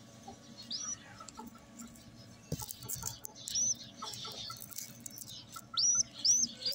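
A young pigeon squab squeaking while being handled: about five short, high chirps, each rising then falling, two of them close together near the end, with faint ticks and rustles between.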